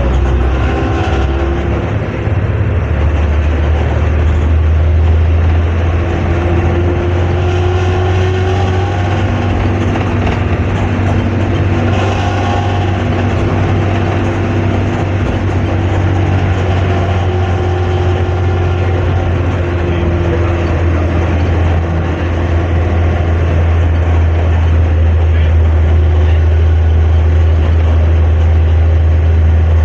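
Hino AK3-HR bus's diesel engine and exhaust heard from the rear seats inside the cabin while driving: a steady, deep snoring drone ("ngorok").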